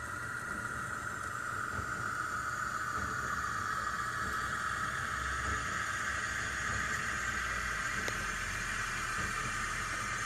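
Steady engine running sound with a hissing band and a low hum, growing slightly louder over the first few seconds.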